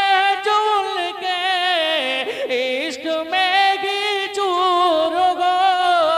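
A man's solo voice singing a naat (Urdu devotional poem) on drawn-out vowels. He holds long notes with a slight waver, breaking into a sliding, wavering run about two seconds in.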